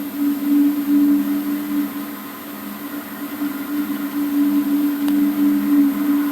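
Low, steady droning hum of two tones, swelling and fading in loudness every second or so: the unexplained 'strange sound' that recurs every ten minutes to half an hour.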